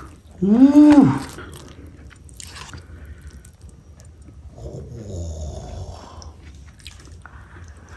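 A person lets out a loud drawn-out hum about half a second in that rises and then falls in pitch, followed by the quieter sounds of chewing a mouthful of food.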